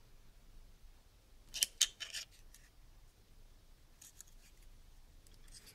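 Faint clicks and light scrapes of a small plastic head-torch housing and circuit board being handled and turned over in the fingers: a brief cluster of sharp clicks about a second and a half in, and a few fainter ticks about four seconds in.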